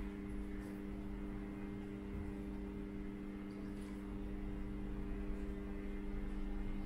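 Steady low electrical hum, a few level tones over a low rumble, with a couple of faint light clicks.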